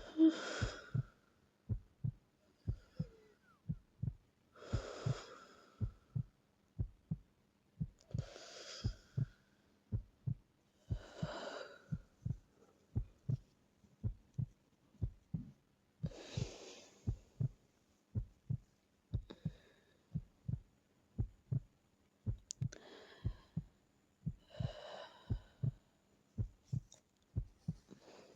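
Slow sleeping breaths, about seven of them, each a soft rush a second or so long, a few seconds apart and unevenly spaced. Under them runs a steady, heartbeat-like rhythm of low double thumps.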